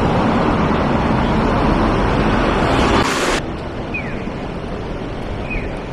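City street traffic: cars passing a pedestrian crossing with a steady rush of tyre and engine noise. A brief loud hiss comes about three seconds in. After it the noise is lower, and a few short high chirps sound.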